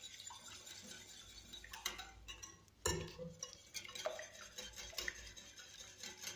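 Wire whisk beating eggs in a glass bowl: a quiet, quick run of light clicks and taps of the wires against the glass, with one louder knock about three seconds in.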